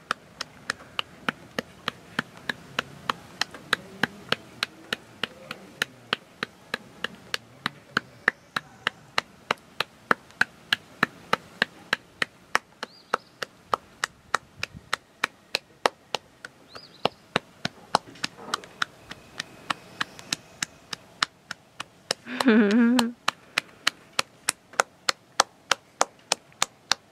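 Steady, evenly paced clicking ticks, nearly three sharp ticks a second, keeping a beat like a metronome. A short vocal sound cuts in about 22 seconds in.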